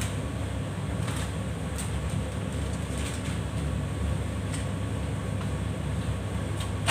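Steady low hum of a kitchen extractor hood fan running over the gas range, with a few faint light clicks and taps.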